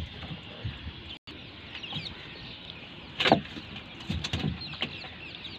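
A few sharp knocks and clatters over a steady hiss. The loudest comes about three seconds in and a quicker cluster follows near the end, as a fishing net is handled in a small wooden outrigger canoe.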